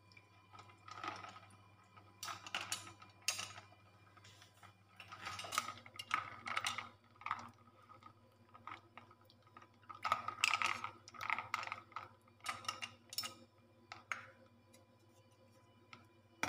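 Metal tongs moving boiled chicken legs around a bowl of ice water: water sloshing and ice cubes clinking in irregular bursts, over a steady low hum.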